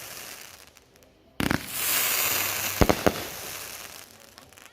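A TNT Survivor firework shooting off: a sudden burst about a second and a half in whose hiss fades over the next couple of seconds, then two sharp bangs close together near the middle.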